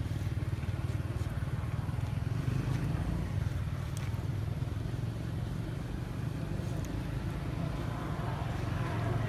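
A steady low rumble with a few faint clicks, like a motor running.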